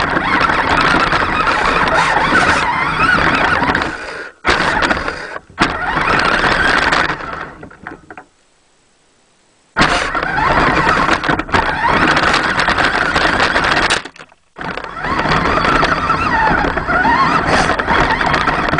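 4WD radio-controlled truck's motor and drivetrain running under throttle, picked up by a camera in a waterproof housing on the truck's front. It stops and starts: a brief break about four seconds in, a second and a half of near silence a little after eight seconds, and another short break about fourteen seconds in.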